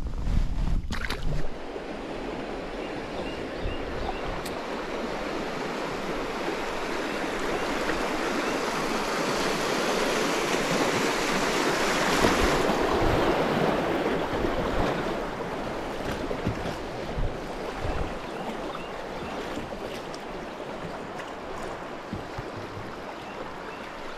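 Rushing river water: a steady wash of moving current that swells to its loudest about halfway through and then slowly fades, with a few low knocks underneath.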